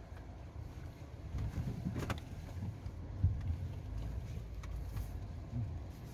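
Suzuki Jimny driving slowly over rough off-road ground: a steady low rumble with a few sharp knocks and clunks, the loudest about three seconds in.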